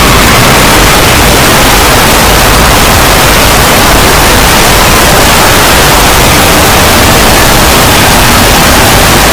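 Extremely loud, heavily clipped and distorted audio: a steady, dense wall of harsh noise with no breaks.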